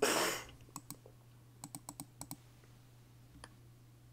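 Quiet, scattered clicks of a computer mouse and keyboard: about eight short taps spread over a few seconds, over a steady low hum, with a brief breathy hiss at the very start.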